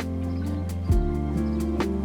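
Background music: held chords over a soft low drum beat that lands about once a second.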